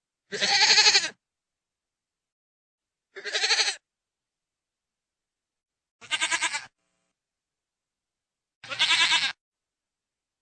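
Goat bleating: four short, wavering bleats, roughly one every three seconds, with dead silence between them.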